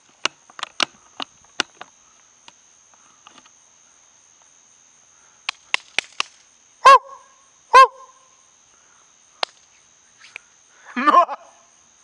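Steady high trill of crickets, with a run of sharp clicks in the first couple of seconds and a few more before the middle. A little past the middle come two loud, short pitched calls about a second apart, and a brief voice-like call near the end.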